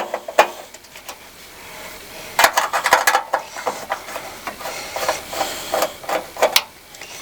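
Irregular knocks, clicks and rattles of a clothes dryer's sheet-metal parts being handled and worked loose during disassembly, with a busy cluster about two and a half seconds in and more near the end.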